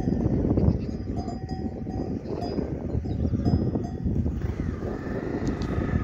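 Bells on a herd of goats clinking at irregular moments, over a steady low rumble.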